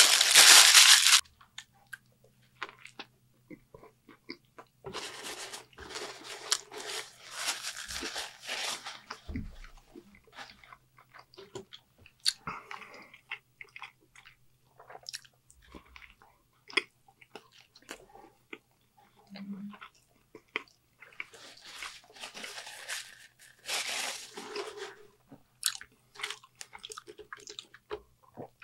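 Close-miked eating sounds: paper wrapper crinkling at the start, then bites and chewing of fast food, with two louder runs of crunchy chewing, one a few seconds in and one past the middle, and many small mouth clicks between them. A faint steady electrical hum sits underneath.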